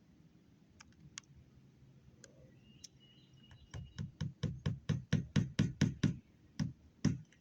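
Hammer driving a nail: a few light taps, then from about halfway a quick run of sharp blows about four a second, a short pause and two more blows near the end.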